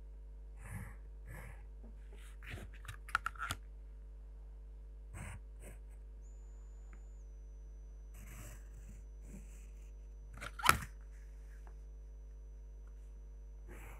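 Faint scrapes and taps of hand drafting: a pencil drawn along the paper and plastic set squares and a ruler shifted on the sheet, over a low steady hum. One sharper click comes about three-quarters of the way through.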